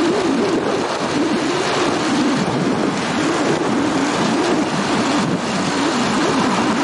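Motorbike engine running as the bike rides along, its pitch wavering up and down, under a steady rush of wind over the microphone.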